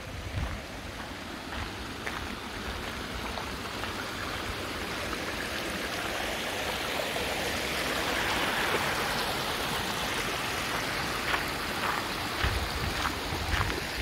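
A small stream running over rocks, growing louder toward the middle, with footsteps on a gravel path near the start and more distinct again in the last few seconds.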